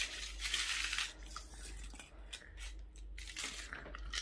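Packaging being torn open and crinkled by hand: an irregular run of rustling and tearing in the first second, then short separate crackles.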